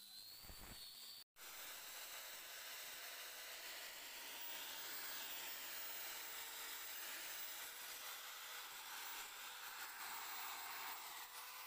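Electric drill spinning a foam-backed sanding disc against a carved wooden door panel: a steady hissing whir of motor and abrasive on wood. About a second in the sound drops out for an instant, and the higher whine of an angle grinder sanding a flat panel gives way to the drill.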